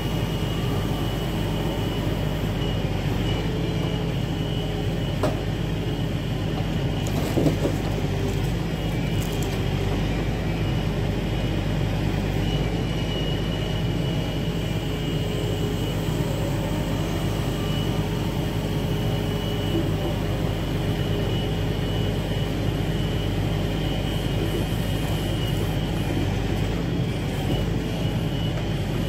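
Diesel engine of a log truck running steadily under load, powering the hydraulic knuckleboom loader as it unloads logs, with a steady whine above it. Two sharp knocks a few seconds in.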